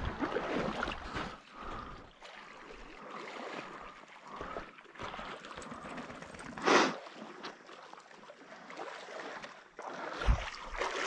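Water splashing and sloshing around a loaded canoe working up a shallow, rocky creek, with one sharp, loud splash about seven seconds in and a low knock near the end.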